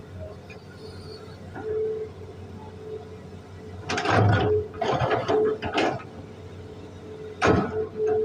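Hitachi hydraulic excavator working while digging soil: a steady hum from the machine, broken by several loud, rough bursts about halfway through and again near the end.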